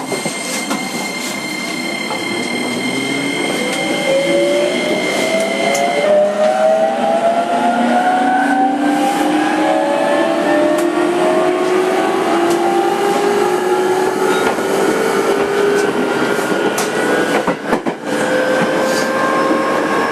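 JR 205 series 5000-number EMU heard from inside its motor car: the VVVF inverter and traction motors whine in several tones that climb steadily in pitch as the train accelerates. A steady high tone drops out about six seconds in.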